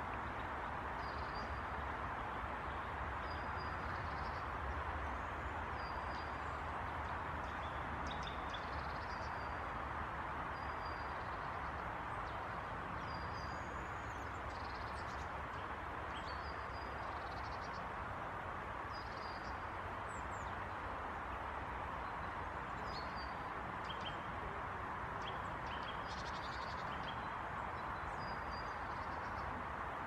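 Small woodland birds calling over a steady background rush: a short high call repeated about every second and a half, with other chirps scattered among it.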